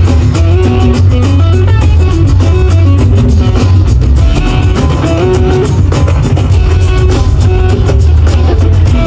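Loud instrumental music with guitar, drum kit and heavy bass, at a steady beat.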